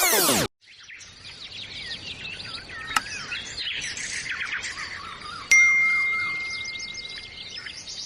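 Many birds chirping and singing together. About five and a half seconds in a single bell-like ding sounds, the loudest thing heard, and rings on for nearly two seconds. Electronic music cuts off in the first half second.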